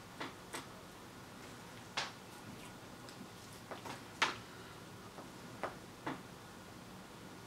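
Light, irregular clicks and taps from hand-soldering a small circuit board held in a helping-hands clamp, with about eight clicks and the sharpest a little past halfway.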